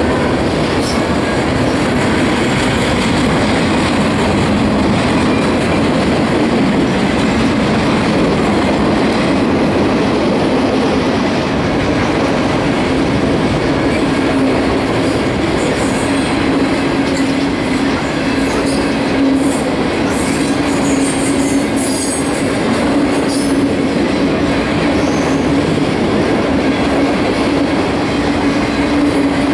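Autorack freight cars rolling past close by: a steady, loud rumble of steel wheels on rail with a steady hum underneath. Brief high-pitched wheel squeals come in now and then past the middle.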